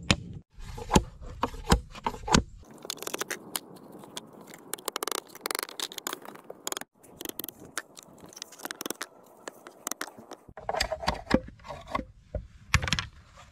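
A few hammer blows knocking on a bamboo tube, then a long stretch of a machete blade scraping and shaving along bamboo. Sharper clicks and knocks come near the end.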